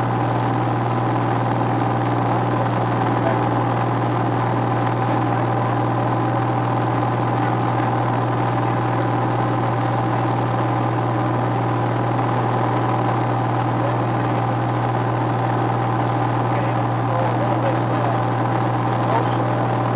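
Piston engine and propeller of a single-engine light aircraft running with a steady drone, heard from inside the cockpit.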